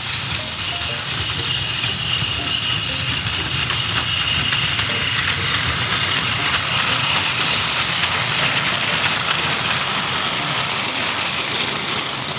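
Plarail battery-powered toy trains running on plastic track: a steady motor whine with the rattle of plastic wheels and freight cars over the rails. It grows louder through the middle as a train passes close by, then eases near the end.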